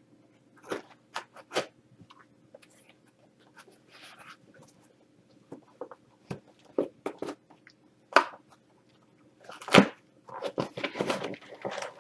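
Box cutter slicing the packing tape on a cardboard shipping box: scattered short clicks and scrapes, then denser tearing and rustling of cardboard over the last couple of seconds.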